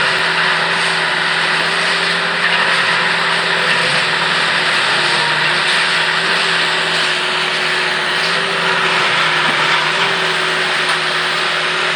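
Construction machinery running steadily during railway track relocation work: a constant loud mechanical din with a steady hum underneath.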